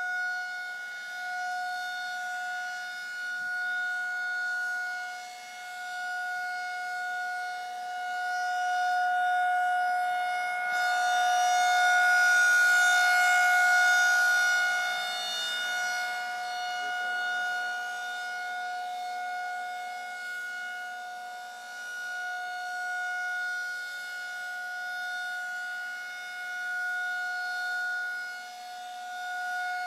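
Federal Signal 2000 outdoor tornado warning siren sounding a steady-pitched tone. The loudness swells and fades over and over, and it is loudest in the middle.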